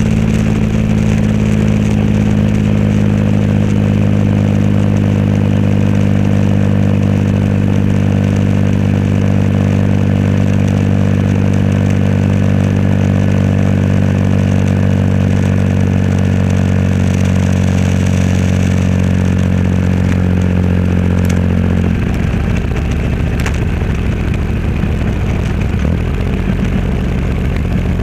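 Triumph Rocket 3 Roadster's 2.3-litre inline three-cylinder engine running through a custom exhaust, holding a steady note at a constant speed. About 22 seconds in, the steady note drops away into a lower, rougher sound.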